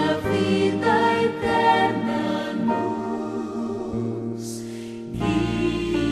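Christian sacred song from a youth album: voices singing together in harmony over instrumental backing. The bass thins out for a few seconds and comes back full about five seconds in.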